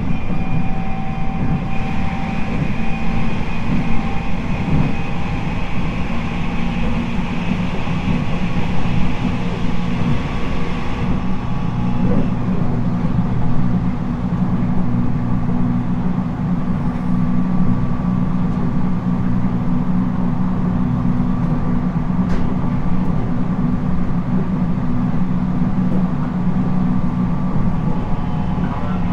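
Running noise inside a 719 series electric multiple unit at speed: a steady rumble of the wheels on the rails with sustained whining tones from the running gear, the jet-like noise of a known noisy car. About eleven seconds in, the highest whine drops away while the lower tones carry on.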